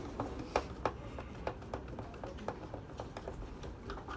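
Light, irregular clicks and taps, a few a second, of a screwdriver working at the screws of a receipt printer's cutter assembly.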